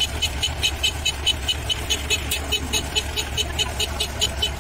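Tracked rice combine harvester's diesel engine running with a steady low drone as the machine crawls over steel ramps, with a rapid high clicking about six times a second.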